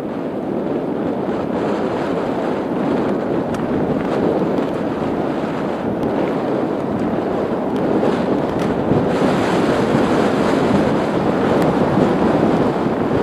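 Wind buffeting the microphone of a mountain biker's camera over the rush of tyres on a rough downhill trail, growing steadily louder as speed builds, with a few sharp ticks.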